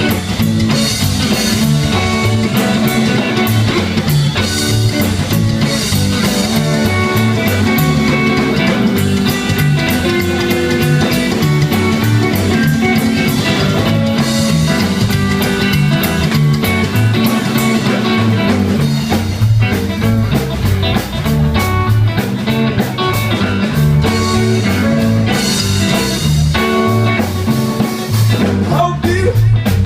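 Live rock-and-roll band playing an instrumental stretch: electric guitar over bass and drum kit with a steady beat.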